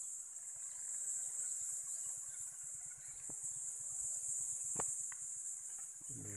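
Insects droning steadily at a high pitch, with a couple of faint short clicks in the middle.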